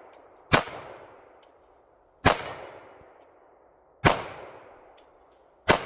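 Four slow, aimed pistol shots about a second and a half to two seconds apart, each trailing off in a long echo. A thin high ring of struck steel targets follows two of the shots.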